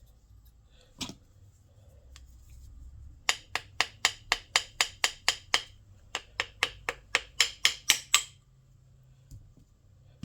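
Hand tool working on a small-engine carburetor: a single click, then two runs of rapid sharp clicks, about five a second, each run lasting about two seconds.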